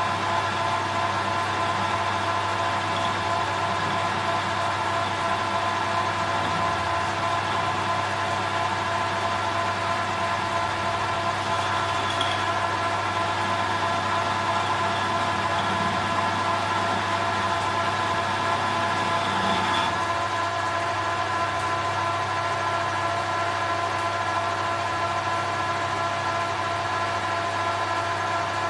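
Metal lathe running steadily, its headstock gearing giving a hum with several steady whining tones, as a cutter turns a round bar held in the chuck. About twenty seconds in, the deeper part of the sound drops away while the whine carries on.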